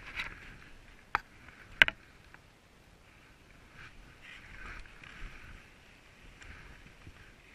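Skis sliding and scraping over snow in swishes that come and go, with two sharp knocks about a second in and just under two seconds in, the second the louder.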